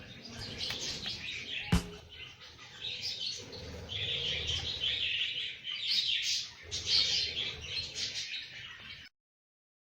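Small cage birds chirping and twittering together in a busy, overlapping chorus. There is one sharp click about two seconds in, and the sound cuts off abruptly near the end.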